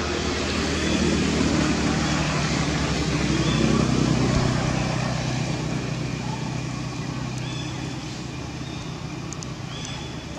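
A motor vehicle's engine running steadily, growing louder to its peak about four seconds in and then fading away as it passes. A few short high chirps come near the end.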